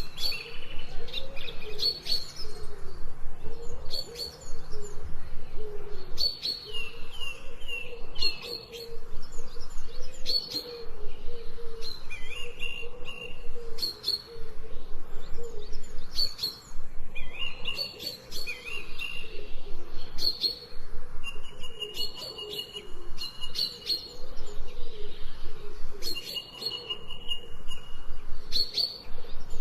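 Several birds singing and calling: short high chirps recurring every couple of seconds, gliding and trilling phrases, and a few long held whistles, over a lower warbling call repeated again and again.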